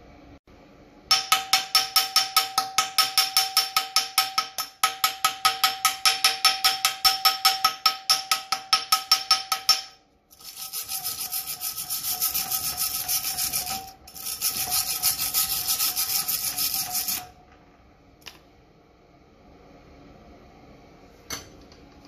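Hand wire brush scrubbing bare steel on a Ford Model T frame rail: quick back-and-forth strokes, about four a second, each with a metallic ring. About ten seconds in it turns to a steadier scrubbing hiss, which stops about seven seconds later.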